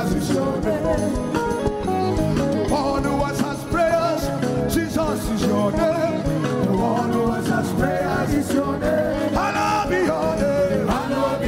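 Live worship music: a lead singer and backing singers singing into microphones over instrumental accompaniment.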